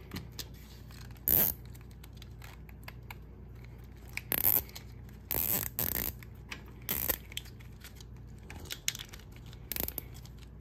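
Nylon zip tie being pulled tight around a tractor wire harness, heard as about six short ratcheting zips spread over several seconds.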